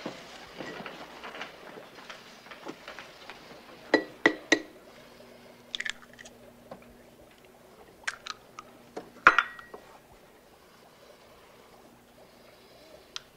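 Sharp clicks and knocks of small hard objects on a tabletop, in short clusters: three quick ones about four seconds in, more about six and eight seconds in, and the loudest about nine seconds in with a short glassy ring. A faint steady hum lies underneath.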